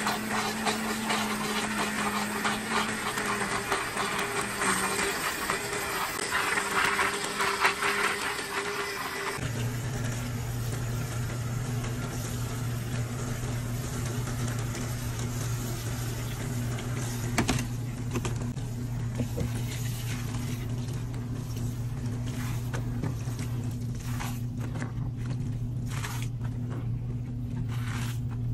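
Countertop blender running, whirring water and laundry detergent powder into a foamy mix. Then a top-loading washing machine hums steadily while water runs in from its dispenser onto the turning clothes, with a few splashes near the end as the mix is poured into the drum.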